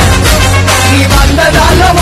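Tamil song with a strong, steady bass line, played loudly for the dancers.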